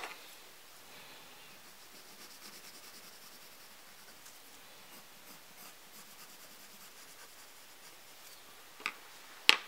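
Lyra coloured pencil scratching on paper in quick, short shading strokes. Two short sharp clicks near the end, the second the louder.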